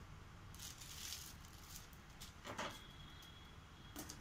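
Hands handling a laptop's plastic case: a brief rustle as they slide over it, then a soft scrape or knock, and a couple of quick light clicks near the end.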